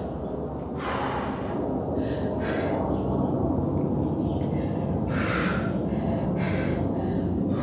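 A woman breathing hard after exertion, with several audible exhales a second or two apart, over a steady low background hum.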